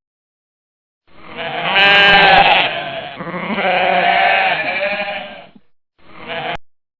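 Bleating of a sheep or goat kind of farm animal: two long wavering bleats, then a short one near the end.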